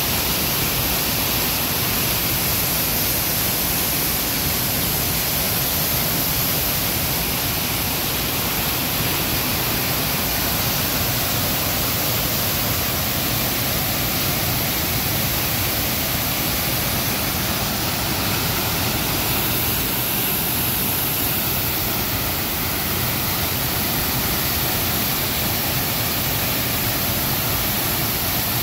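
Partridge Falls, a waterfall crashing onto rocks and into its plunge pool close by: a loud, steady rush of falling water and spray, even from low to high pitches, with no breaks.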